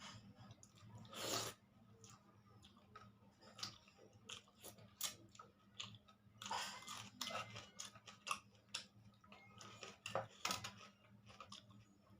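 A person chewing and eating a meal of rice, dal, fried greens and soybean curry, with irregular soft mouth smacks and clicks and a louder one about a second and a half in.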